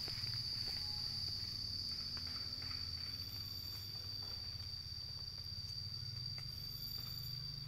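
Steady high-pitched drone of an insect (cricket or cicada) singing without a break, with faint rustles and ticks from two cats wrestling on dry leaf litter.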